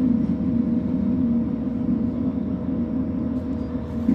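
JR Hokkaido H100 diesel-electric railcar heard from inside the car: a steady low drone of its running engine and electrical equipment, with a constant hum tone over it. A short knock comes near the end.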